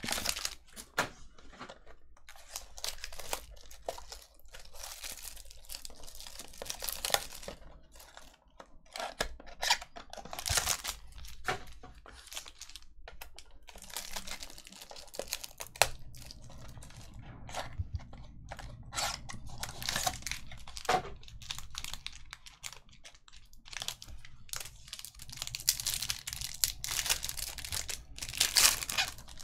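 Foil and plastic trading-card pack wrappers crinkling and tearing as hands peel and rip them open, in irregular spells of crackle that are busiest near the end.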